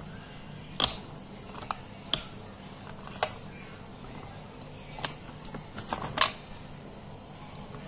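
Slate pencil cubes being bitten and crunched between the teeth: a series of about eight sharp, crisp cracks at irregular intervals, the loudest a little under a second in and just after six seconds.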